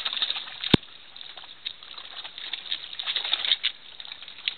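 Pool water lapping and splashing in an above-ground pool, a light crackling patter, with one sharp click about three-quarters of a second in.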